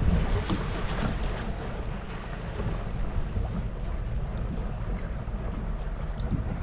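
Wind buffeting the microphone on a small fishing boat at sea, over the wash of water against the hull, in uneven gusts. A few faint ticks come in the second half.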